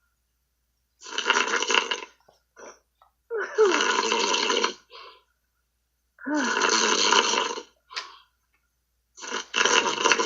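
A man snoring heavily, heard through a Skype call: four long snores, one about every two and a half to three seconds, with dead silence between them.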